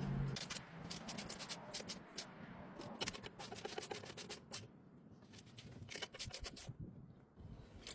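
Hardware being worked by hand while the bolts of an electric camper tongue jack are tightened down: runs of quick light metallic clicks with some scraping, in short bursts with pauses between.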